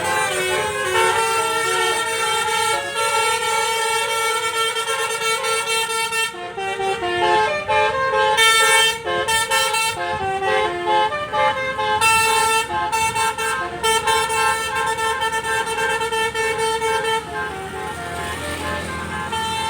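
Bus 'basuri' musical horn playing a tooting melody, its notes stepping up and down every fraction of a second, with short breaks in the tune.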